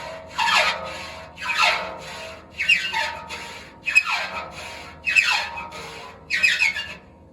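A hand file rasping across the replaceable teeth of a sawmill blade in steady strokes, about one a second, each stroke falling in pitch. The teeth are short and dull, and he is filing a little lead into them to get a few more days out of them. The filing stops near the end.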